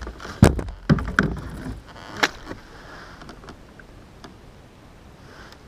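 Kayak paddle knocking and clunking against the kayak hull: a heavy knock about half a second in, two more just after a second, and a sharp knock near two seconds, then only faint background.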